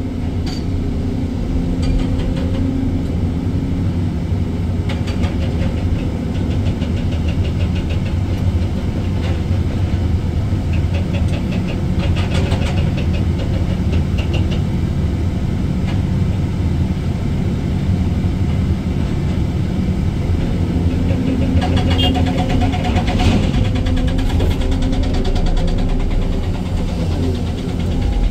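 Excavator diesel engine and hydraulics running steadily under load, heard from inside the cab, with several short runs of rapid clattering.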